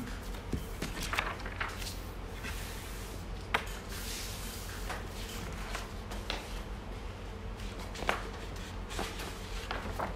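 Handling sounds at a desk: scattered knocks and clicks, the sharpest two about three and a half and eight seconds in, with rustling as papers and a folder are moved and opened. A steady low hum runs underneath.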